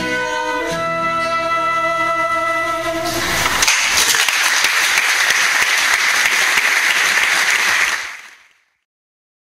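Flute and Spanish guitar with a woman singing hold the closing notes of a song, then audience applause for about four seconds before the sound fades out.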